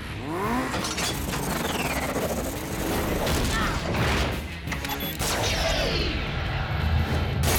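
Cartoon battle sound effects over background music: whooshing sweeps that rise and fall in pitch, blasts and crashes.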